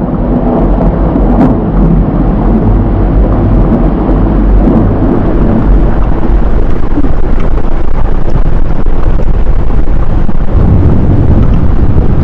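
Volcanic eruption sound effect: a loud, continuous deep rumble that grows heavier in the lows near the end.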